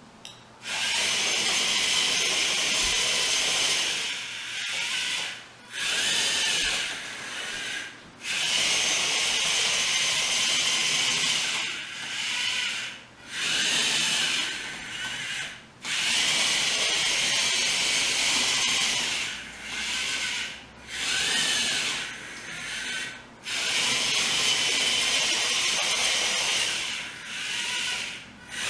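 The geared DC track motors of a DFRobot Devastator tracked robot chassis whine as it drives. The whine stops and starts repeatedly: four longer steady runs, separated by short stops and quieter spells, as the robot drives the four sides of a square and pivots at the corners.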